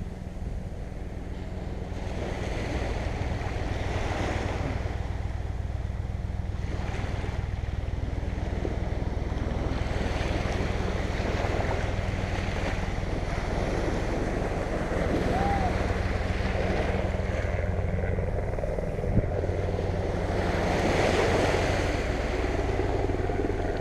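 Gulf surf washing onto the beach in repeated swells, with wind rumbling on the microphone and one sharp click late on.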